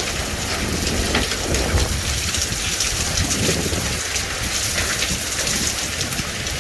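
Hail and heavy rain pelting down: a dense, steady hiss thick with the sharp ticks of hailstones striking, over a low rumble of wind on the microphone.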